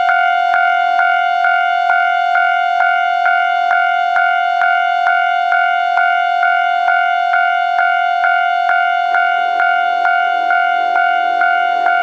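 Japanese level-crossing warning bell starting up and ringing steadily, a loud electronic ding repeated about twice a second, signalling that a train is approaching. A low hum from the approaching train comes in under it near the end.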